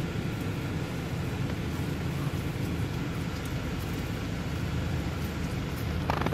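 Steady low rumble inside a car, with a brief clatter or rustle near the end.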